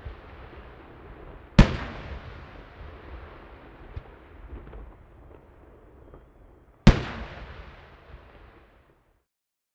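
Firework shells bursting: two loud bangs about five seconds apart, each followed by a long rolling echo that fades away, with a smaller pop in between. The sound cuts off abruptly near the end.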